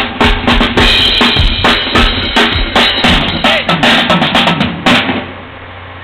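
Drum kit played in a fast, steady groove, kick drum and snare prominent, stopping abruptly about five seconds in and leaving a steady low hum.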